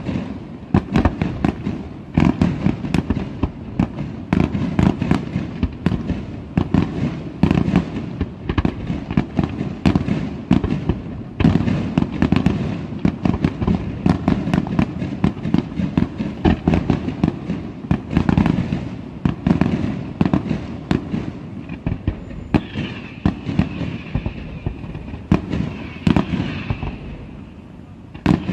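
Fireworks display: aerial shells and comets bursting in a rapid, dense string of bangs, several a second. In the last few seconds the bangs thin out and a high whistling tone is heard before one more loud bang at the very end.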